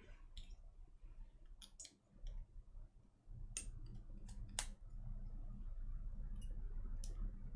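Small, sharp, irregular clicks and scrapes of a precision screwdriver and steel pick prying at the tip contacts inside a Miniware TS100 soldering iron's handle, about ten in all. A low hum comes in a little over three seconds in.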